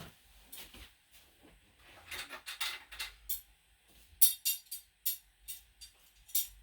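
Steel hand tools clinking and clacking against each other as they are handled: a few light clinks, then a quick run of sharper ones in the last couple of seconds.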